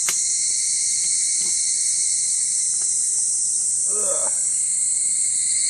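A steady, loud chorus of insects shrilling on an even high pitch throughout, with a sharp click right at the start and a short grunt of effort about four seconds in.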